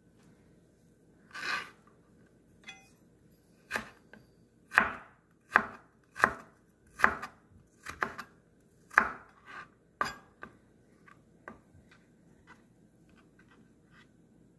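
Kitchen knife chopping fresh ginger on a cutting board: a run of sharp knocks, about one every three-quarters of a second, then lighter taps near the end.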